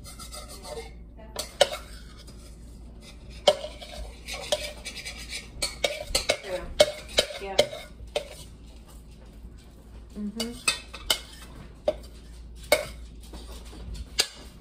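A spoon scraping and knocking against a bowl, scraping sticky slime out of it, in irregular clinks and scrapes.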